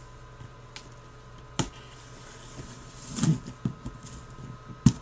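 Large cardboard shipping box being opened by hand: a small tool scraping and cutting along the packing tape, giving a few scattered sharp clicks and scrapes, the loudest just before the end.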